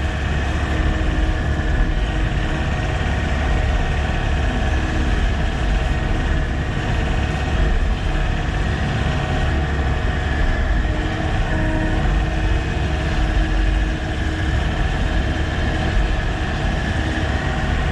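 Sany SY95 excavator's diesel engine running steadily under work, a continuous drone with a few held higher tones over it.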